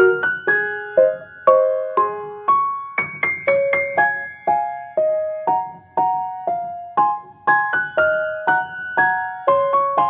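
Background music: a piano melody of single struck notes, a new note about every half second, each one fading before the next.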